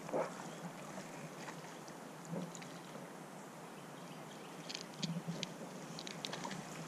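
Quiet water ambience around a drifting canoe: a faint steady hiss of water and air, with a short bump at the start and a few light clicks and taps about five seconds in.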